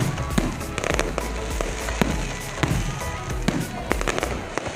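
Fireworks display: aerial shells bursting in quick succession, a steady stream of bangs and crackling, with music playing alongside.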